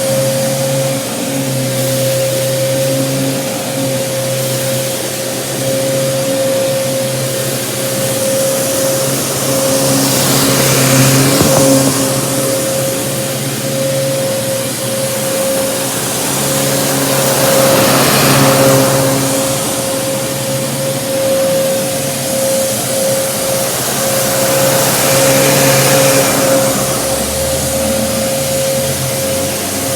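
Kenmore Progressive upright vacuum cleaner running, a steady high motor whine under a rush of air that swells and eases about every seven seconds.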